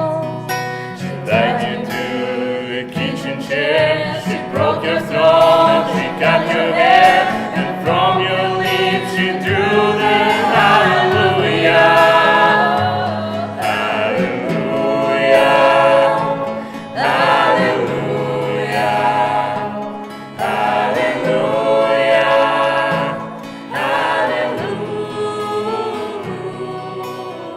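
Several voices singing long, held phrases together over an acoustic guitar, fading toward the end.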